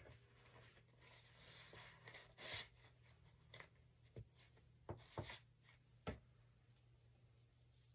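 Near silence: a faint low room hum with a few soft, short rustles and taps of handling.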